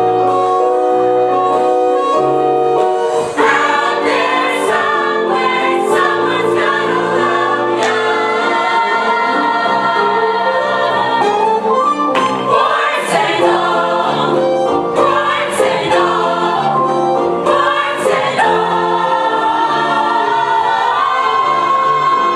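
A stage chorus singing a musical-theatre number with instrumental accompaniment: held notes at first, then a busier, fuller passage from about three seconds in.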